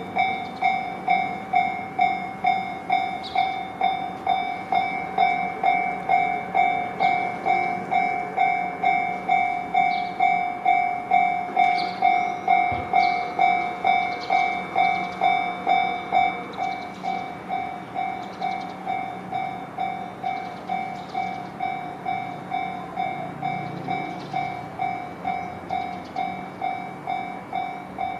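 Japanese railway level-crossing warning bell ringing, a repeating electronic two-tone "kan-kan" strike at nearly two strikes a second, a little softer after about the middle.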